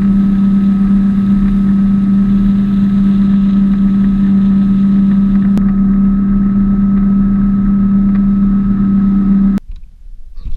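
Motorboat engine running at a steady speed as the boat moves fast, with the rush of wind and water over it. It cuts off suddenly about nine and a half seconds in, leaving quieter water sounds.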